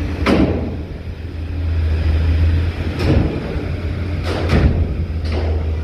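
A large tour bus running at low speed during ferry loading: a steady low engine rumble, broken by several sharp clunks, about half a second in, near the middle, and three in the last second and a half.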